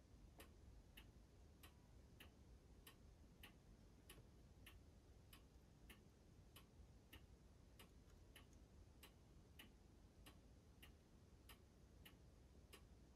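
Near silence: room tone with a faint, regular ticking, about three ticks every two seconds.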